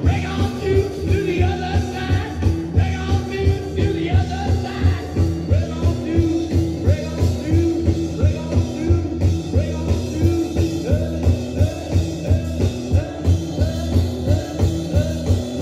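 Rock song playing, with singing over a steady beat.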